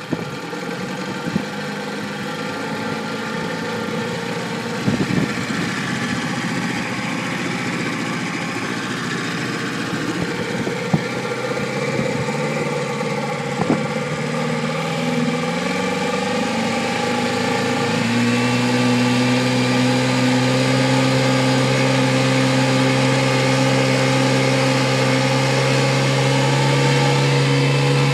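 Motorboat engine running under way over a steady rushing noise; a little past halfway its pitch rises as the boat speeds up, then holds steady at a higher, louder note. A few sharp knocks along the way.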